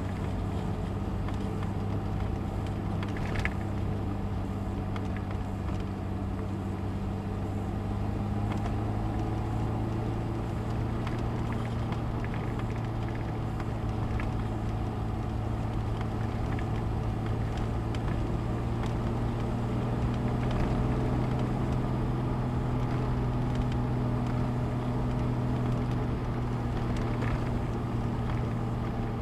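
Car engine running steadily under load as the car climbs a hill, its pitch edging up a little about a third of the way in and again around two-thirds.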